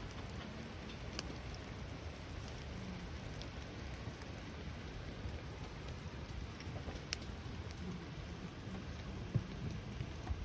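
Steady rain falling, with a few sharper drop hits now and then.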